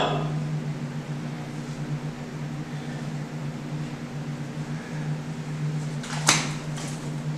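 A steady, low machine hum runs on inside a steel tank, with one sharp knock about six seconds in.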